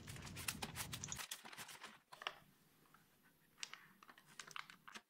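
Faint crinkling of paper and small clicks from a washi-paper lantern on its rattan frame as hands push it along a plastic mold to work it loose. The clicks come thick in the first second or so, then only a few scattered ones.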